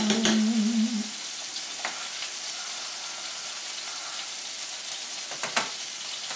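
Chicken pieces frying in a skillet, a steady sizzling hiss. A short wavering hum sounds in the first second, and a utensil clinks against a pot a few times, about two seconds in and near the end.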